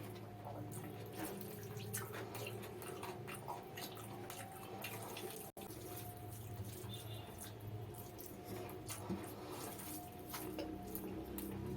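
Close-miked wet eating sounds from mutton biryani with raita: chewing and lip smacking, heard as many small irregular wet clicks.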